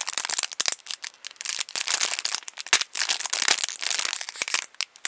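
A foam squishy toy being squeezed, very crackly: dense, irregular crackling in bunches as it is pressed and let go, a sign of a stiff, not very squishy foam.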